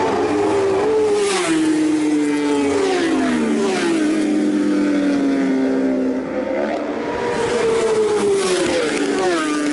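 Racing superbikes at high revs passing one after another, engine pitch dropping as each goes by and rising again as the next approaches.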